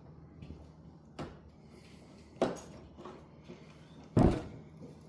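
Three separate knocks and clunks from handling things at the work area, the last and loudest a heavy thud about four seconds in.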